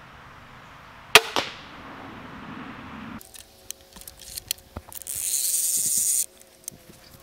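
Ravin R26 crossbow fired: a sharp, loud snap of the string release about a second in, and a second crack a quarter-second later as the bolt strikes the target. Then clicks as the cocking crank handle is fitted into the stock, and a steady whirring for about a second and a half as the crank winds the string back, stopping suddenly.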